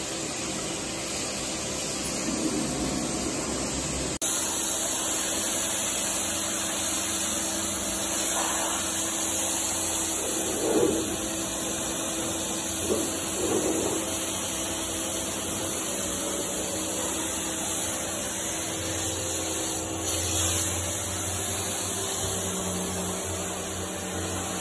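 Kärcher sprayer's motor running steadily with the hiss of its spray gun as degreaser is sprayed onto car carpet. The sound changes abruptly about four seconds in.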